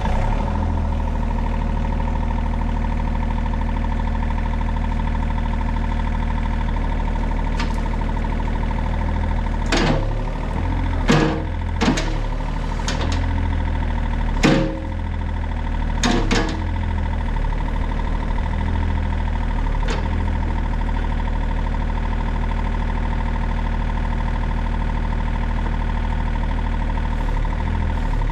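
Excavator engine running steadily just after starting, with a steady high whine over it. Several sharp clunks and knocks come between about ten and sixteen seconds in.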